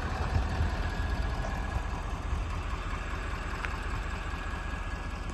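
Pickup truck engine idling steadily, a low even rumble.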